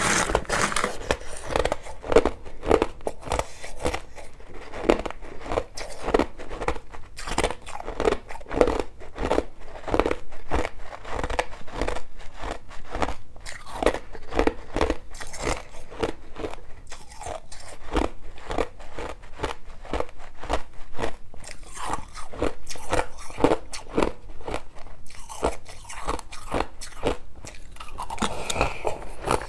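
Crushed ice being bitten and chewed: a steady run of crisp crunches, about two or three a second.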